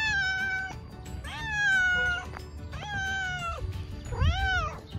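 Tortoiseshell-tabby-and-white cat meowing over and over in long, drawn-out meows about a second apart, the last one rising and then falling in pitch.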